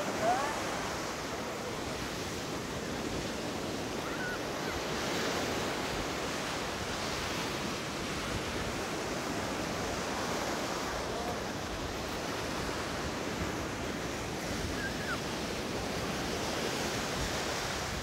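Steady wash of surf breaking on a sandy shore of a rough sea, with wind on the microphone. A few faint distant voices of people on the beach cut through now and then.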